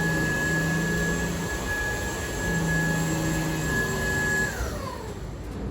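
UNINELL UV3 cordless stick vacuum running steadily on a rug with a high motor whine over a low hum, quiet for a vacuum. About four and a half seconds in it is switched off, and the whine falls in pitch as the motor spins down.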